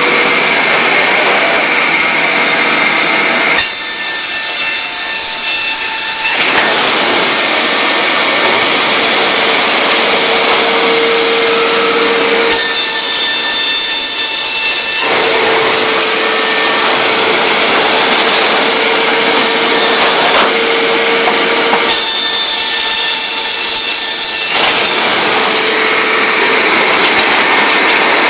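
Multi-blade circular rip saw running and ripping boards, a loud steady machine noise with a sustained whine. Three times it turns harsher and shriller for about three seconds.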